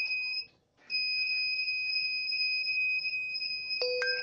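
Q-See QT5716 DVR's internal buzzer sounding its power-on error as one high, steady beep that breaks off for a moment near the start and then holds continuously. This is the unit failing to boot, a fault the owner cures by replacing its power supply. A couple of clicks and some short lower tones come in near the end.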